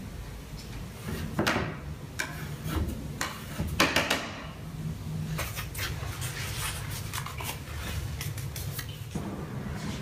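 Clinks, knocks and scrapes of tools and paint containers being handled on a studio worktable. The loudest are a few sharp strikes between about one and four seconds in, followed by a run of lighter clicks, over a steady low hum.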